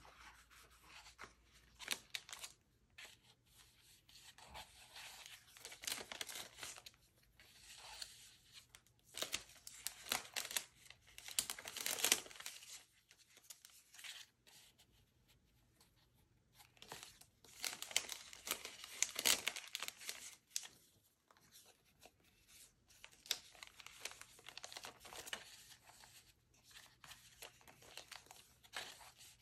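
Clear plastic sticker packet crinkling and rustling as stickers are pulled out and leafed through by hand, in irregular bursts with short pauses; the loudest handling comes about twelve seconds in and again about nineteen seconds in.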